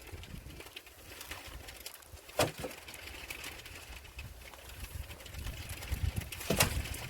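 Two sharp knocks, one about two and a half seconds in and one near the end, over a low wind rumble on the microphone.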